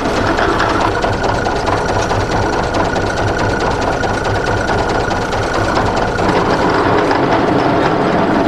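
Drill press running with a step drill bit cutting a hole through an oiled metal plate: a steady grinding cutting noise over the motor's hum, with a thin high whine holding for a few seconds near the start.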